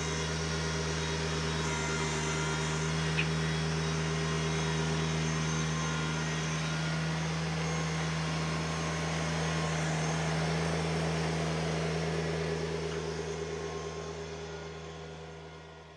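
LS MT125 compact tractor's 25-horsepower three-cylinder diesel running at a steady speed as the tractor drives across grass, growing fainter over the last few seconds.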